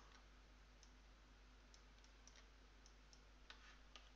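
Near silence with a few faint, scattered clicks of a computer mouse.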